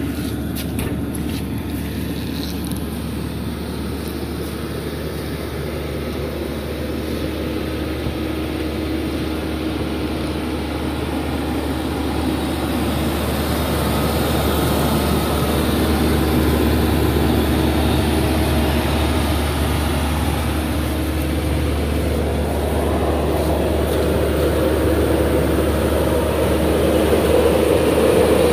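Caterpillar 307D compact excavator's diesel engine idling steadily, a constant low hum that grows gradually louder over the second half.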